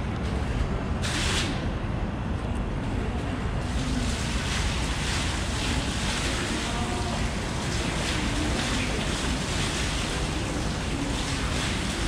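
Water falling from the overhead nozzle bar of a computer-controlled water-curtain clock, a steady splashing hiss that starts about four seconds in. Under it runs a low steady rumble.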